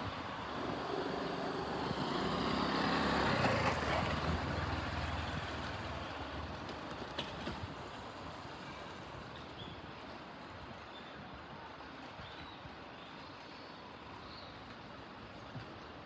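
A large road vehicle passes with its engine running, loudest about three to four seconds in and then fading away. A few faint bird chirps come near the end.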